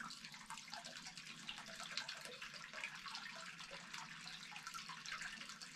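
Faint trickle of spring water running from a pipe into a plastic bottle as it is filled. The flow is slow and weak.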